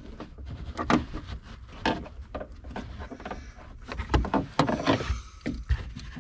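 Irregular knocks, clicks and rustling from a hand working behind a car trunk's carpet liner against the sheet-metal panel, over a low rumble.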